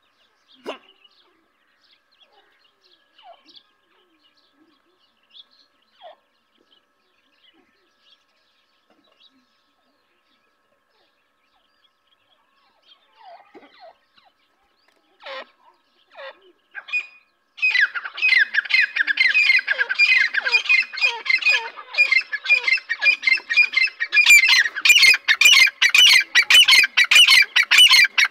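Grey francolin (teetar) chicks and adults calling: scattered soft peeps at first, then from about two-thirds of the way through a dense, loud run of rapid chirping calls, with sharp clicks among them near the end.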